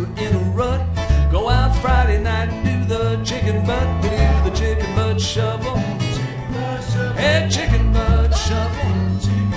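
Swinging country shuffle played on acoustic guitar, upright bass and resonator guitar, with no vocals: the upright bass keeps a steady beat under sliding melody lines.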